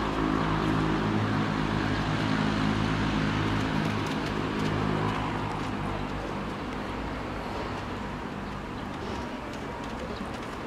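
An engine's steady drone over outdoor background noise, fading gradually from about halfway through.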